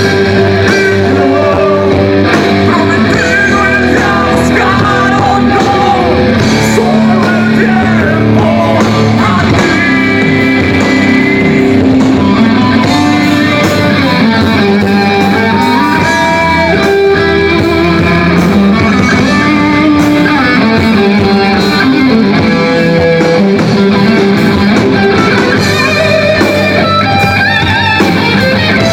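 Rock band playing live and loud, with electric guitar carrying melodic lines over the full band.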